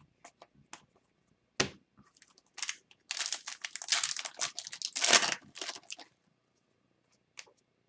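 Foil wrapper of a hockey card pack being torn and crinkled, with a sharp snap about a second and a half in and dense crackling for about three seconds after.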